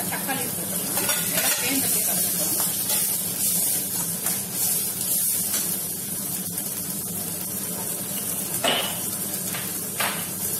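Chopped onion, tomato and greens sizzling steadily in hot oil in a stainless steel kadai. A steel ladle scrapes and stirs against the pan during the first couple of seconds, then the sizzle carries on alone, with two short sharper sounds near the end.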